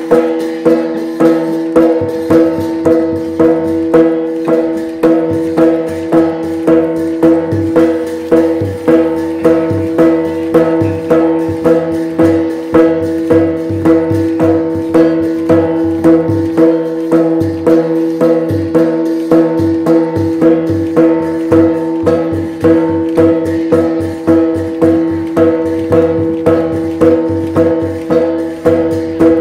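Traditional Shan (Tai Yai) dance music: a steady drum beat, about three beats every two seconds, over held ringing tones.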